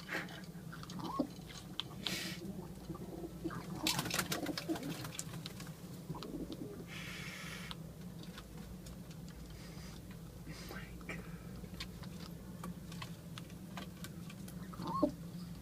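Young racing pigeons cooing in short calls, with scattered sharp clicks and a brief rustle of movement over a steady low hum.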